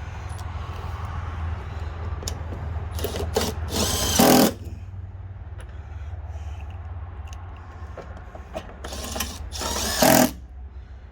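Power drill running in short bursts: a few about three to four seconds in and two more around nine to ten seconds. A steady low hum runs underneath.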